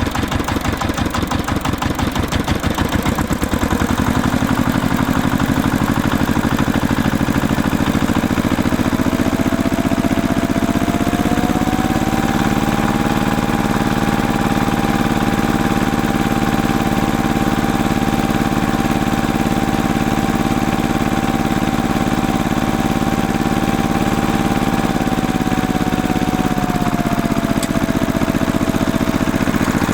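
Diesel tractor engine running: it chugs at idle, picks up speed about a third of the way in, holds a steady higher speed with a whine on top, then settles back down near the end.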